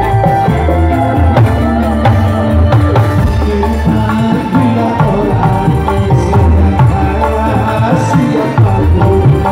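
Live dangdut band playing an instrumental passage: tabla-style hand-drum strokes driving the rhythm over bass and sustained melody lines.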